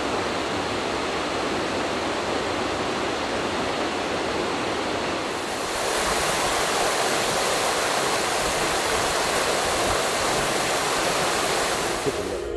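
River water flowing, an even steady hiss that turns brighter and a little louder about five seconds in.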